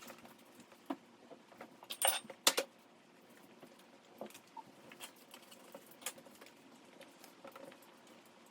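Faint scattered clicks and light knocks of things being handled, with a louder cluster of three sharp clicks about two seconds in.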